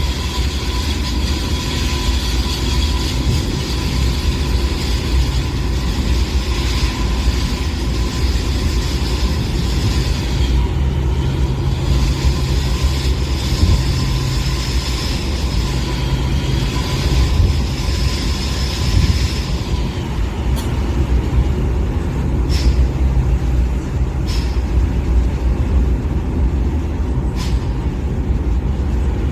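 A train running: a steady low rumble with a high whine that stops about two-thirds of the way through, followed by a few sharp clicks.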